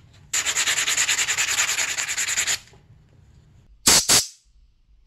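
A rapid rasping scrape, about a dozen strokes a second, lasting about two seconds, then a pair of sharp clicks near the end.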